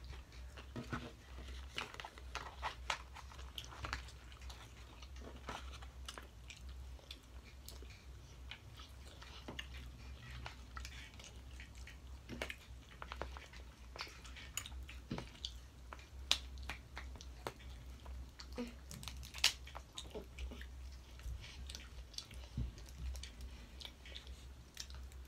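Eating sounds at the table: chewing and biting into seafood boil, with many scattered short sharp clicks and cracks as shellfish and crab legs are handled and broken open. A steady low hum runs underneath.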